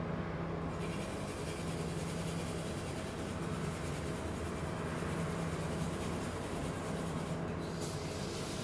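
Steady low hum with a layer of hiss that comes in about a second in and briefly drops out near the end.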